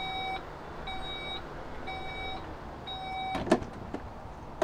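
Volkswagen Touareg's power tailgate closing: four warning beeps about a second apart, then a clunk as it latches about three and a half seconds in.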